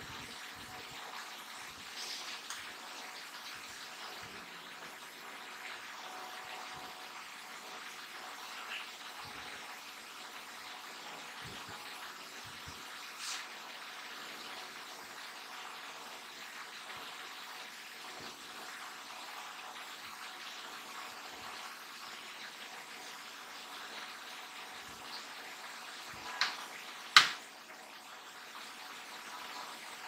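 Wires and terminal connectors being handled at a washing machine control board: faint rustles and small clicks over a steady hiss, with two sharp clicks near the end, the second one loud.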